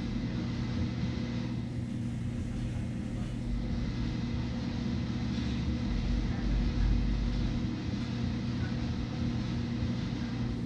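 Steady low mechanical hum with a low rumble underneath that swells briefly about six to seven seconds in.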